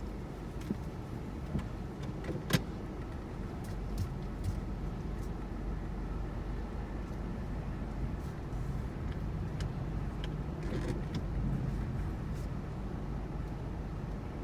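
Thunderstorm ambience: a steady low rumble and hiss that swells a little in the second half, with scattered sharp ticks and one louder crack about two and a half seconds in.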